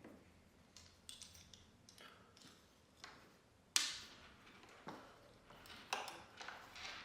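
Faint plastic clicks and taps as a dishwasher door-hinge rope string and its plastic cable guide are handled and clipped onto the dishwasher frame, with one sharper click about halfway through.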